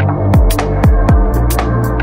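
Electronic dance music with a steady beat: deep kick drums that drop in pitch, about two a second, under crisp hi-hats and a sustained bass.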